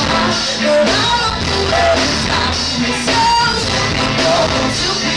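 Live pop-soul band playing with a female lead singer belting into a microphone, backed by electric guitar, bass and female backing vocals.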